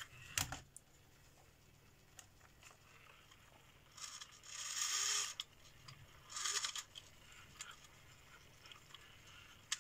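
Wooden (plywood) clock model being handled. A short knock right at the start, then wood scraping and rubbing: a longer scrape about four seconds in, a shorter one about two seconds later, and a few faint clicks between.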